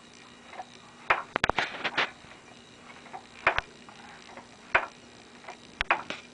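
Wooden rocking toy clicking and knocking as a toddler rocks it, a sharp tick or short creak roughly once a second in an uneven rhythm, with a cluster of quick knocks near the two-second mark.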